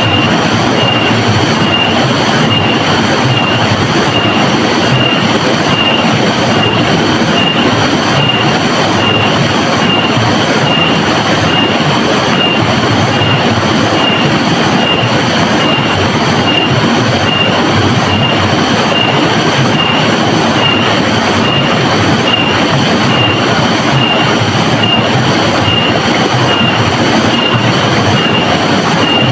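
Steady rushing of river water, with a high-pitched tone pulsing about once a second over it.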